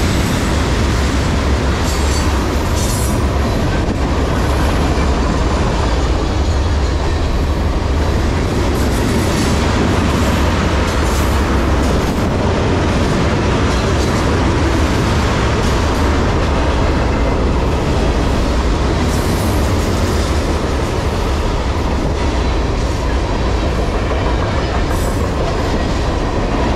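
Freight train tank cars rolling past at speed on the near track: a loud, steady rumble of steel wheels on rail, with the clickety-clack of wheels over rail joints standing out now and then.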